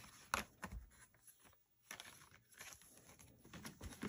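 Faint rustling of paper booklets being handled and set down, with soft taps and one sharper tap just after the start.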